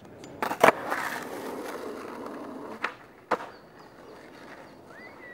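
Skateboard on concrete: two sharp clacks of the board about half a second in, then the wheels rolling, then two more sharp clacks of the board hitting the ground about three seconds in.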